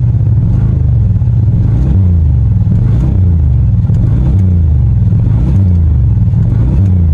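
2005 Pontiac Grand Prix engine running and being revved, its pitch rising and falling back several times.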